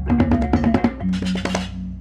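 Balinese baleganjur gamelan music: rapid drum and cymbal strokes over steady ringing gong tones, with a wash of clashing cymbals in the second half.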